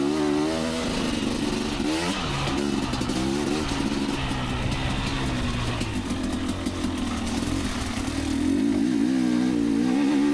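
Two-stroke dirt bike engine revving up and down as the throttle is worked, with a quick rise in pitch about two seconds in and a stronger pull near the end.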